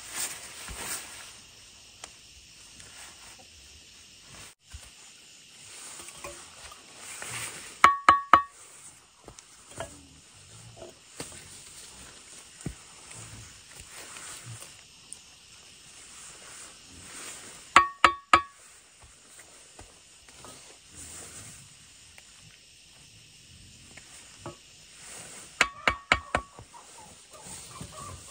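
Concrete blocks being set into wet mortar on a footing, with small scrapes and knocks. Three times a quick run of three or four sharp, ringing metal taps knocks the blocks into line.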